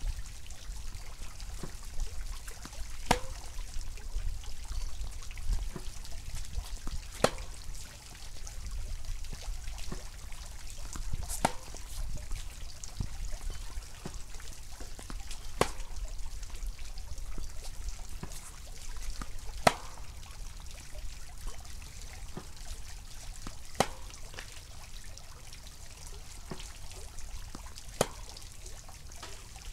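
Tennis racquet, a Yonex VCORE Tour G, striking groundstrokes: seven sharp hits about four seconds apart, with fainter pops in between, over a steady low rumble.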